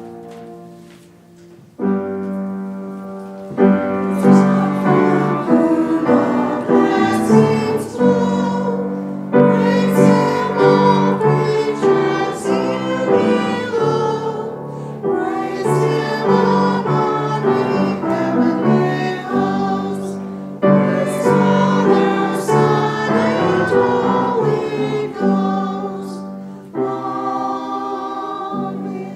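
Piano playing offertory music: full chords struck every few seconds and left to ring out.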